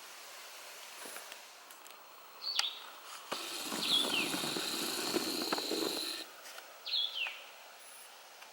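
A bird calls several times with short, sharply falling notes. About three seconds in, a rush of noise lasting about three seconds rises underneath the calls.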